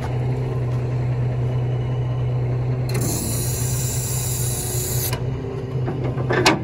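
Tractor-trailer engine idling steadily, with a hiss lasting about two seconds midway through and a single sharp click near the end.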